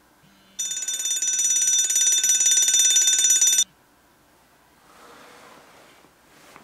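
Mobile phone ringing: a bright electronic ring with a fast flutter and a buzzing vibration about once a second, lasting about three seconds and cutting off suddenly.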